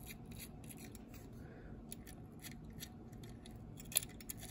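The rotating bristle sweeping brush on a Corgi Toys Faun street sweeper die-cast model, with its metal pin and metal broom assembly, is being rubbed and turned by hand. It gives a quiet run of irregular scratchy clicks, with one sharper click about four seconds in.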